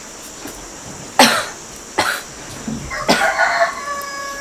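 A sick woman coughing three times, about a second apart, then a rooster crowing starting near the end.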